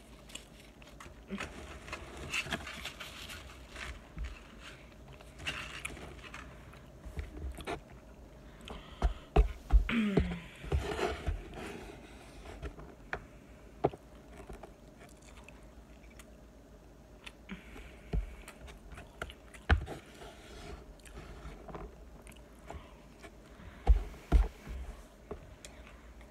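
Close-miked eating: chewing and mouth sounds, with a metal fork scraping and tapping against a takeout container, and several sharp knocks scattered through, the loudest a cluster about ten seconds in.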